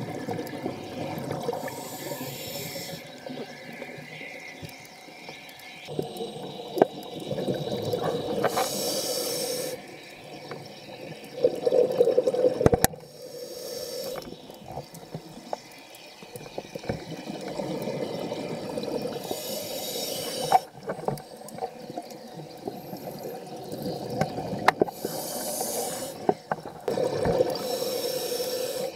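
Underwater sound heard through a camera housing: a muffled water rumble with a low hum, broken by about five loud hissing rushes of a second or two each.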